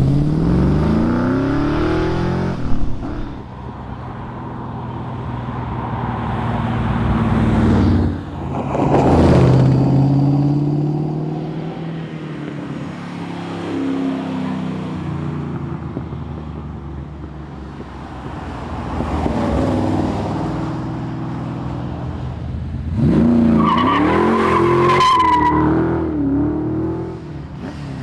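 Valiant Charger engine driven hard, its revs climbing and falling with each gear change. Tyres squeal briefly near the end.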